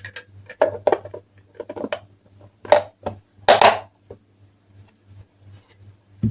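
Kitchen handling sounds: a string of light knocks and taps with two short scrapes near the middle, typical of utensils and dishes being handled during food preparation.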